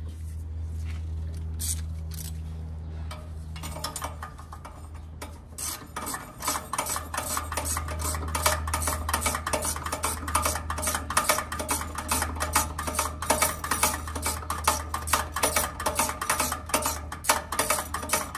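Ratchet clicking rapidly and unevenly from about five seconds in, as exhaust manifold bolts are tightened to spec, over a steady low hum.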